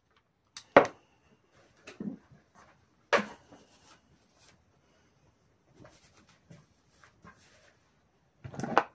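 Kitchenware handled on a wooden cutting board: two sharp knocks, about a second in and again about three seconds in, as a glass chopper bowl and peeled boiled eggs are set down, with faint handling sounds between. A short burst of rustling and clatter comes near the end.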